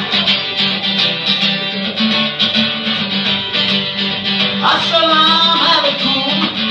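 Acoustic guitar strummed steadily in even chords, amplified through a PA, with a man's voice singing a line about two-thirds of the way through.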